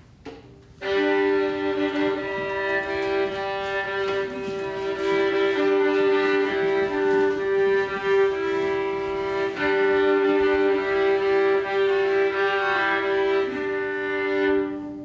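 Live violin playing two notes together: a steady held upper note over a lower note that changes pitch, starting about a second in.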